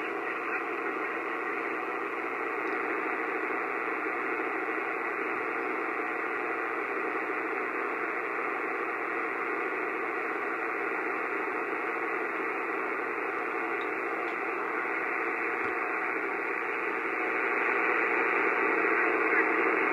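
Kenwood R-1000 shortwave receiver tuned to 10028 kHz: steady static hiss, with the faint fast-warbling signal known as 'the buzzer' buried in it, an unidentified utility transmission. The noise grows a little louder near the end.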